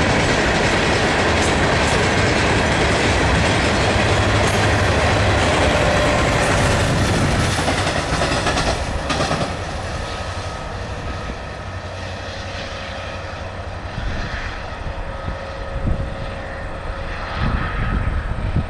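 Freight train of ore cars rolling past close by, steel wheels clattering on the rails. About nine seconds in it drops to a quieter, more distant train sound, with a few gusts of wind on the microphone near the end.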